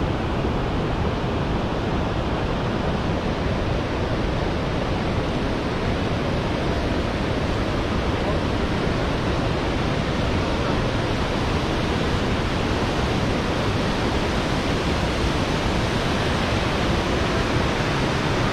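Niagara River rapids rushing, a steady, unbroken rush of white water.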